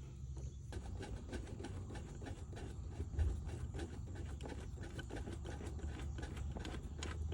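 Faint, irregular small clicks and rubbing of a hand tool working on the rear differential drain plug under a car, over a low steady hum.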